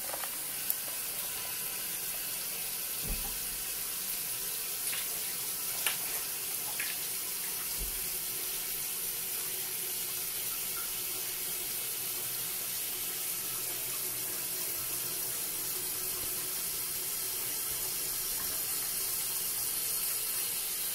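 Toilet tank refilling through a newly installed Fluidmaster fill valve: a steady hiss of water rushing in and churning, with a few faint knocks.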